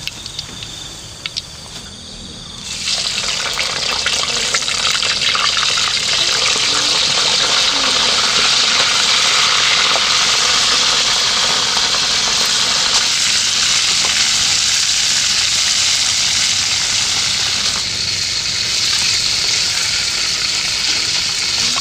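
Pieces of waterhen meat going into hot oil in a wok, which starts sizzling loudly about three seconds in. The frying then continues as a steady sizzle while the meat is stirred.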